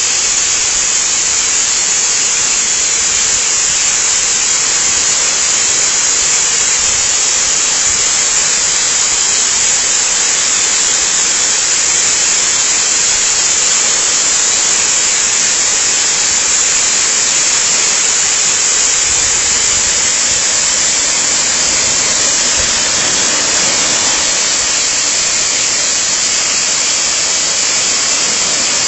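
Waterfall rushing: a loud, steady hiss of falling water that never changes, with little low rumble.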